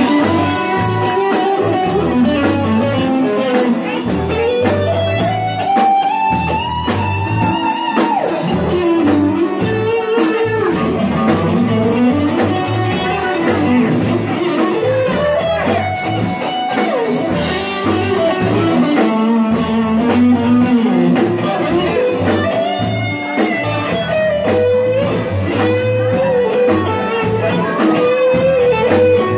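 Live band playing an instrumental passage led by electric guitar, its notes bending up and down, over bass and drums with a steady beat.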